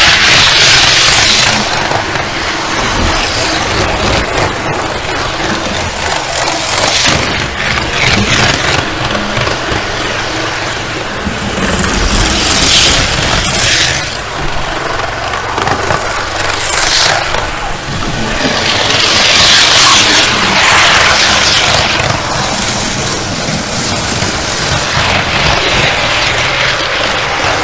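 Roco HO-scale ICE model train running fast along the track, heard through a small camera riding on its roof: a loud rushing noise of wheels and motor that swells and eases several times.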